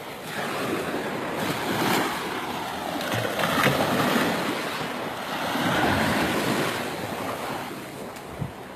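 Sea surf washing onto a beach, the noise of the breaking waves swelling and easing, with wind on the microphone.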